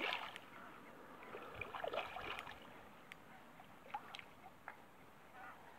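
Hooked sea trout thrashing at the surface of shallow water: small splashes in the first couple of seconds, then faint lapping with a few light ticks.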